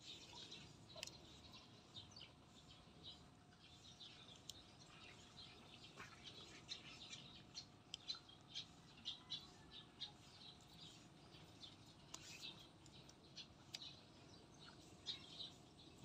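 Faint small birds chirping, many short, high chirps scattered through near silence, with a few faint clicks.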